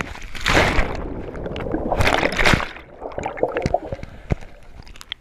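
Water sloshing and splashing in two louder surges in the first three seconds, then scattered small clicks as it settles.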